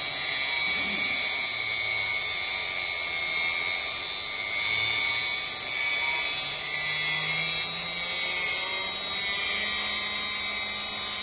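Shapeoko 3 XXL CNC spindle whining steadily at 12,000 rpm as it plunges a 0.100-inch drill bit into walnut. The bit goes straight in without pecking. A faint low hum comes in about six seconds in and rises slightly in pitch.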